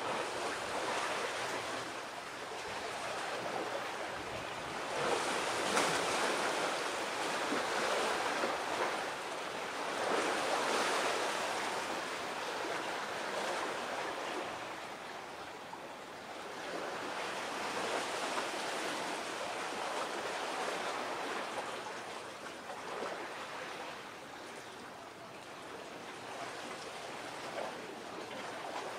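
Waves washing in and breaking close by, a steady rush that swells and eases every few seconds.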